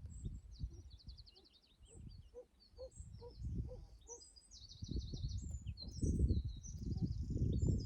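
Small birds chirping and trilling, and from about two seconds in a pheasant gives a run of five low, evenly spaced notes that sound like a dog. Under it a low rumbling noise grows louder in the second half.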